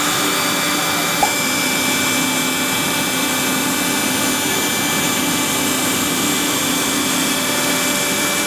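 CNC router spindle running steadily with a small chamfer bit cutting a light chamfer along the slots of a wooden card tile, its speed turned down a little from 13,000 RPM. A short click about a second in.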